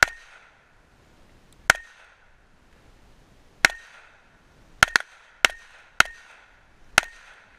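A 1911 pistol firing handloaded .45 ACP rounds: a string of about eight shots, spaced a second or two apart at first and coming faster in the second half, each with a brief ringing tail.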